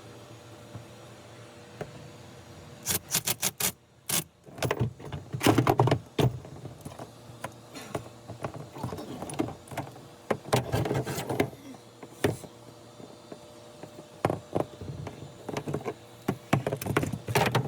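Hands working with hose fittings and clamps: scattered clicks, knocks and metallic clinks, busiest about five and ten seconds in and again near the end.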